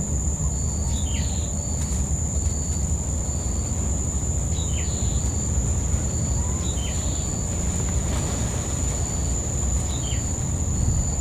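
Forest ambience: a steady high-pitched insect drone, and a bird repeating a short call that drops in pitch every two to three seconds, over a low steady rumble.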